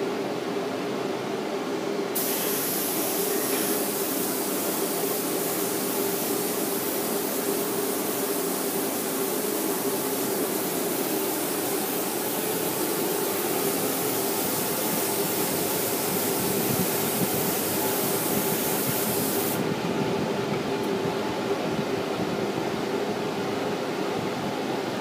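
Compressed-air spray gun spraying stain in one long steady hiss that starts about two seconds in and cuts off sharply a few seconds before the end. Under it runs a steady machine hum.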